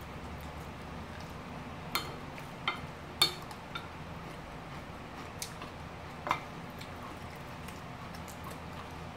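Chopsticks and utensils clicking and tapping on ceramic plates while eating: a handful of separate sharp clicks, over a low steady hum.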